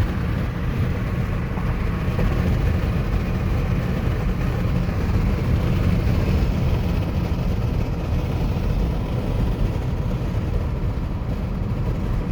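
Steady low road rumble of a moving car, tyre and engine noise, heard from inside the cabin.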